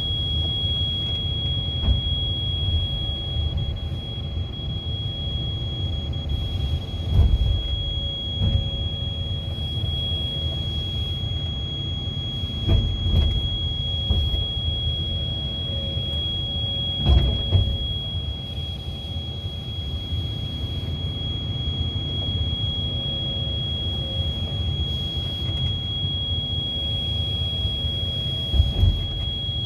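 Komatsu PC210 excavator's diesel engine running steadily, heard from inside the cab, with a steady high-pitched tone over it. Several heavy metal clunks, the loudest about 7, 13, 17 and 28 seconds in, as the arm's coupler picks up and locks onto the bucket.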